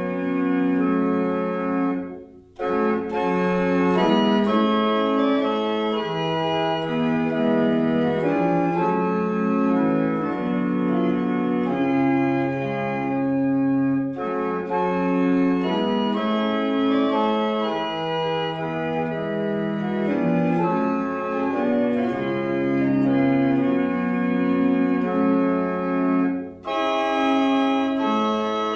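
Church organ playing a hymn tune in slow, held chords, with two short breaks between phrases, about two seconds in and near the end.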